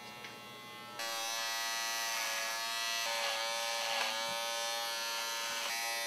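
Electric hair clippers buzzing as they trim a beard. The buzz grows much louder about a second in as the clippers are pressed to the face, and it dips briefly in pitch several times.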